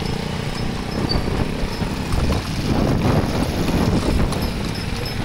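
Horse hooves clip-clopping on a paved street as a delman, a horse-drawn carriage, moves along, with steady street traffic noise and passing motorcycles around it.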